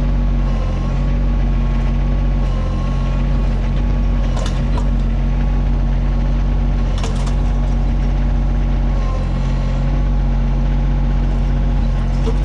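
Mini excavator's diesel engine running steadily under work, with two short sharp clinks about four and seven seconds in.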